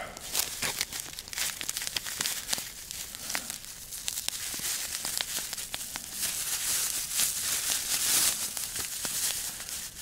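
Clear plastic bag crinkling and rustling as it is handled and opened, with many small sharp crackles; it grows louder for a few seconds past the middle.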